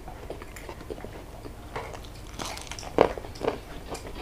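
A person chewing a mouthful of rice and fish, with many small mouth clicks and crunches. A sharp tap stands out about three seconds in.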